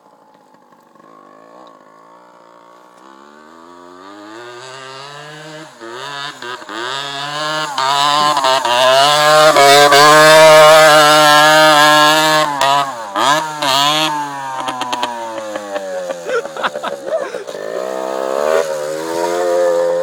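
Yamaha DT 80 two-stroke single-cylinder dirt bike engine revving hard under load, growing from faint to loud as the bike approaches and climbs a slope close by, pitch rising and falling as the throttle is worked. It drops off for a moment about two-thirds of the way in, then revs up again as the bike pulls away.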